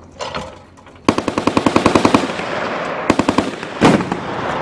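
M2 .50-calibre heavy machine gun fire: a rapid burst about a second in, followed by shorter bursts, the loudest near the end.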